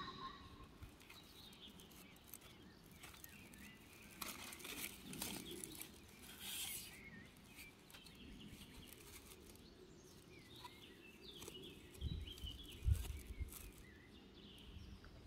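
Faint birdsong, short chirps here and there, over soft rustling and clicking as gloved hands work the soil and set a paper seed packet into a pot. A few low thumps about twelve to thirteen seconds in.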